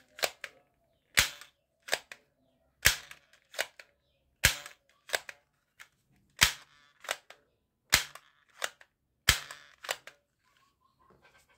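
Plastic toy pump-action gun being worked by hand: sharp plastic clacks, each loud clack followed about half a second later by a softer one, repeated about seven times at roughly one-and-a-half-second intervals.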